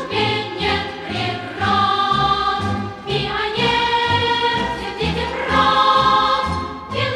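Music: a choir singing long held notes over an instrumental accompaniment with a regular bass beat about twice a second.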